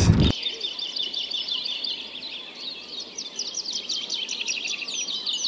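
Recorded birdsong dubbed in to censor the conversation, cutting in abruptly over the speech just after the start. A bird sings a rapid, even series of short, high, falling whistled notes, several a second.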